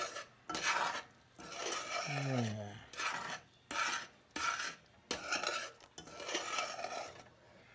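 A utensil stirring peaches simmering in syrup in a metal saucepan, scraping around the pan in about seven strokes, roughly one a second.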